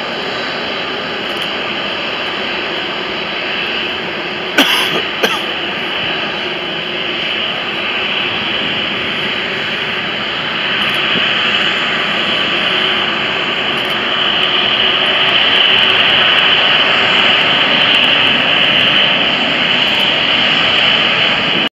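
Emirates Airbus A380's four jet engines at taxi power: a steady jet whine and hiss that grows louder over the second half. Two sharp clicks come about five seconds in.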